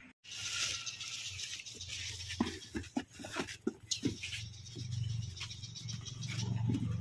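Outdoor background noise with a steady low hum, and a run of sharp clicks and knocks about two to four seconds in.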